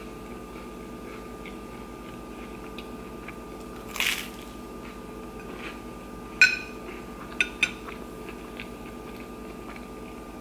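Chewing with a short crunchy bite about four seconds in, then a metal spoon clinking against a ceramic plate, once sharply and twice more about a second later.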